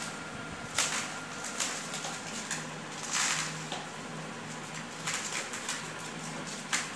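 Dried maize kernels being rubbed off the cobs by hand, rattling and pattering into a plastic tub in short irregular bursts, the longest about three seconds in.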